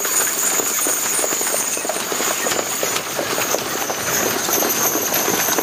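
Draft horses in six-horse hitches trotting past on packed dirt: many quick, overlapping hoof beats with no steady rhythm.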